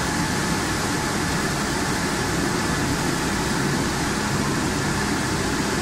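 French fry production line running: a steady machinery hum with a constant rushing noise from the bubbling water tank and conveyors, unchanging throughout, with a faint high steady tone in it.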